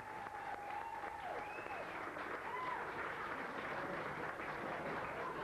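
Live audience applauding a contestant's entrance, with voices calling out over the clapping.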